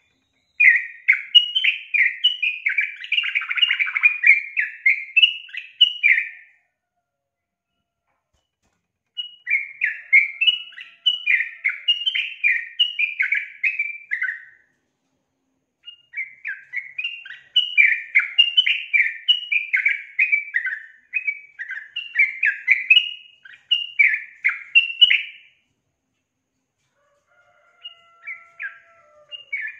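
Female yellow-vented bulbul (trucukan) calling in quick runs of short chirping notes, in three bouts of about five to nine seconds, each followed by a couple of seconds of silence. Another bout starts near the end. It is the female's call, used to stir males into singing.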